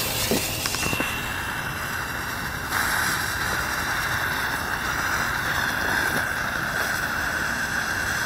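Hula Hoops ground-spinner firework hissing steadily as it spins on the ground, its fuse burning; the hiss gets louder about three seconds in. The fuse is the fast, unstable kind the uploader takes for flying fish fuse.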